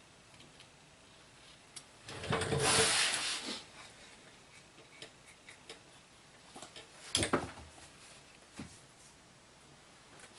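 Hand work on truck parts: a scraping rub lasting about a second, a few faint ticks, then a single sharp clack about seven seconds in.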